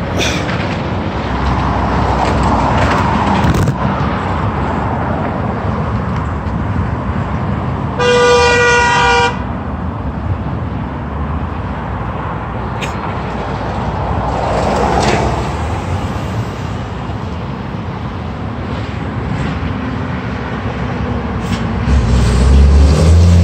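Road traffic passing, a steady mix of tyre noise and engines with cars swelling by. A single vehicle horn honks once for a little over a second about a third of the way in. Near the end a heavy truck's engine rumbles in close and grows louder.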